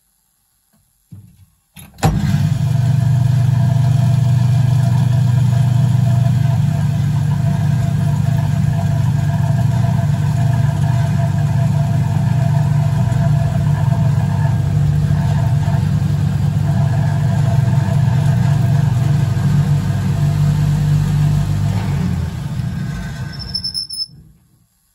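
Hotpoint 1012 spin dryer running at speed with a load of nappies: a loud, steady motor hum with a whining overtone. It comes in suddenly about two seconds in and fades away over the last few seconds.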